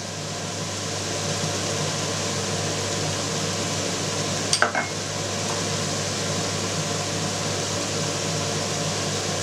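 Minced meat and rice sizzling steadily in a nonstick frying pan over a gas flame, with a faint steady hum beneath and one light knock about halfway through.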